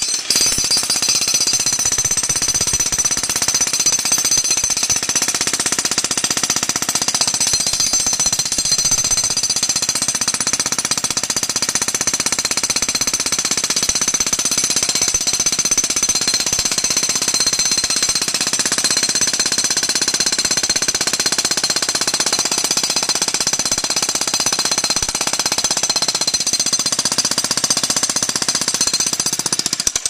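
Corded electric jackhammer hammering steadily without a break, its chisel bit breaking up the concrete of a swimming pool shell.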